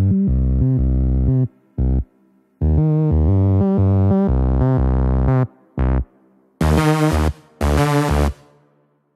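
Background music: chords over deep bass, played in short blocks that start and stop abruptly, the last two brighter and hissier, ending shortly before the close.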